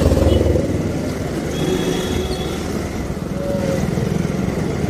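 Motorcycle engine running steadily as the bike picks up speed from a crawl.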